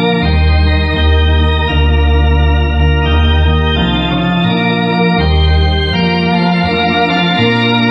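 Harmonia HS 200 Super electronic organ playing a hymn in four-part harmony: held chords that change every second or so over a low pedal bass line.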